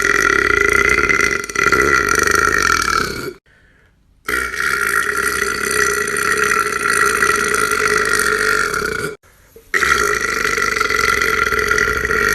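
A person burping loudly in long, drawn-out burps, each lasting several seconds at a steady pitch. One ends about three seconds in, a second runs for about five seconds, and a third starts near ten seconds and is still going at the end.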